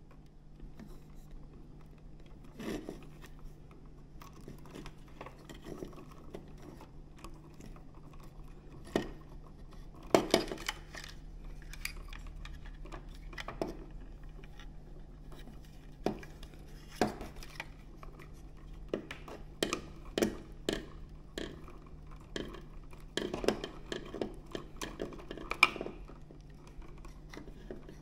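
Small clicks, taps and clinks at irregular intervals as a three-way wall switch, its metal mounting strap, the wires and plastic twist-on wire connectors are handled while being wired. The loudest knocks come about 10 and 26 seconds in, over a faint steady low hum.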